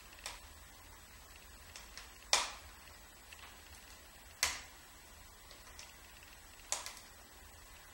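Wood fire in a fireplace crackling quietly, with a few sharp pops; the loudest come about two seconds in and again about four and a half seconds in.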